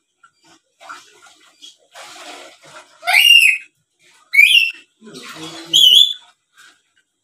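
Black-capped lory calling: three loud, shrill, wavering whistled calls about a second apart, with softer chattering between them.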